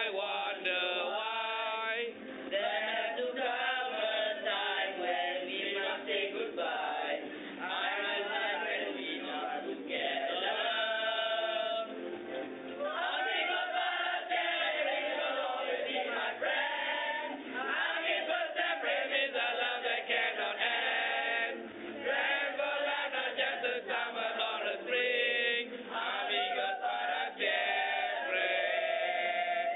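A group of boys' voices chanting together without a break, some notes drawn out.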